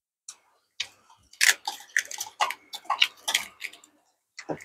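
Mukbang eating sounds: slurping from a bowl of sour soup and wet, smacking chewing, a quick irregular run of noises from about a second in.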